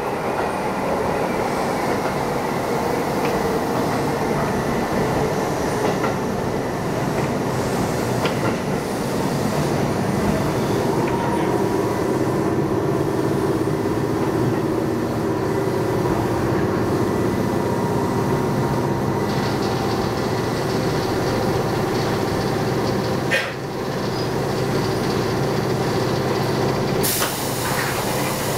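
Interior running sound of a refurbished Keisei 3500-series electric train, heard from motor car MoHa 3545: steady traction-motor and gear hum over wheel and rail noise, with a short loud hiss near the end as the train draws into the station.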